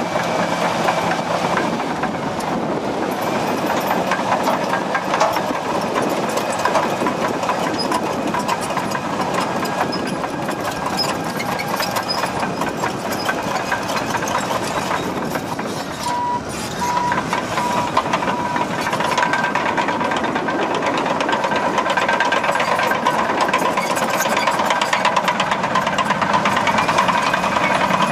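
Caterpillar D6M LGP crawler dozer working: its diesel engine running with the steel tracks clanking and rattling. From about halfway a steady high whine runs along with it.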